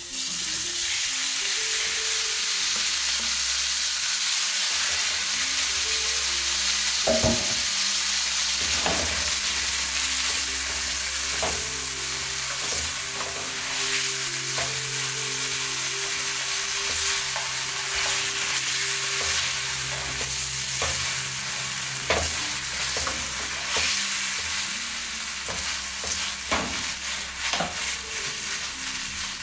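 Gravy frying with a steady sizzle in a cooking pot, being stirred, with the spoon clicking against the pot now and then.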